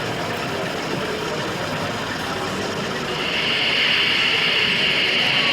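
Model train running on an exhibition layout over a steady hall background, its higher whirr getting louder about three seconds in.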